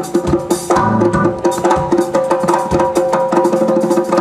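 Live band playing an upbeat groove: two djembe hand drums beat a quick, dense rhythm over electric guitar and sustained pitched notes.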